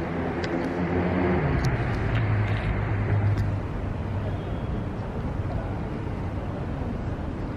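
A road vehicle passes on a street. Its engine note swells, drops in pitch as it goes by, then settles into a steady low hum of traffic.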